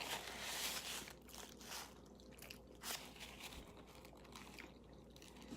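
Faint chewing and mouth sounds of a person eating baked pasta, with a few soft clicks.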